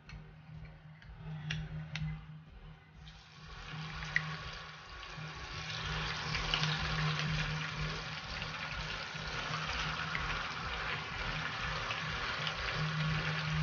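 Chicken pieces frying in hot oil in a frying pan: a steady sizzle that starts about three seconds in and builds, after a few sharp clicks.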